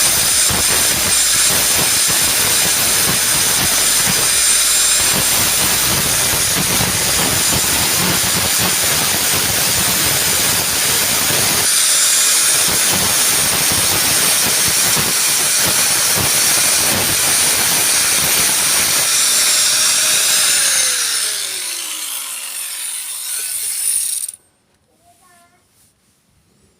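Angle grinder grinding off the rivets that hold a washing-machine dryer motor's housing together: a loud, steady grinding noise that eases near the end and then cuts off suddenly.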